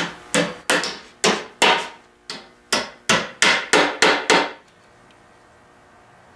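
Hand hammer striking about a dozen quick, sharp blows, stopping about four and a half seconds in.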